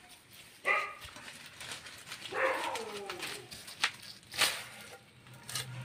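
An animal calls twice: first a short call, then a longer one that falls in pitch. A few sharp knocks follow as a whole pineapple is handled against a cutting blade.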